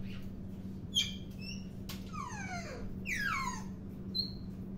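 African grey parrot whistling and squeaking: a click and a short squeak, then two long falling whistles about two and three seconds in, and a short high whistle near the end.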